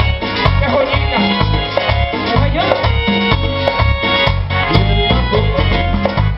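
Tropical band music with a steady, pulsing bass rhythm under sustained keyboard or accordion tones.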